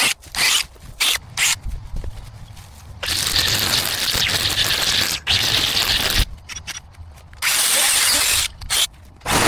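Hand tool scraping and rustling through weeds and grit while clearing an overgrown garden path: a run of short rough strokes, then a long scrape of about three seconds, more short strokes, and a second, shorter long scrape near the end.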